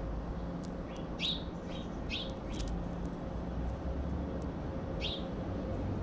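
Small songbird chirping: a handful of short, high chirps, most within the first three seconds and one more about five seconds in, over a steady low rumble.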